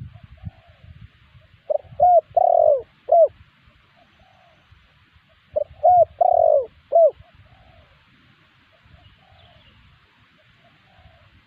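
Spotted dove cooing: two phrases about four seconds apart, each of four coos, with softer coos in between. This is a recorded dove lure call of the kind played to draw wild spotted doves into answering.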